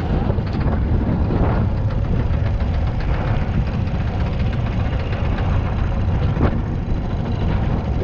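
Rabeta, a small longtail outboard motor, running steadily as it pushes a small passenger boat across the lake.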